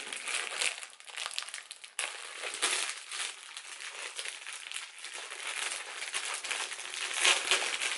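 Packaging crinkling and rustling in irregular handfuls as a folded flag is pulled out and unwrapped by hand, louder about two seconds in and again near the end.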